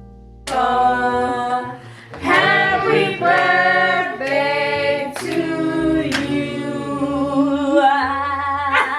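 Several voices singing together, breaking in loudly about half a second in after quiet music.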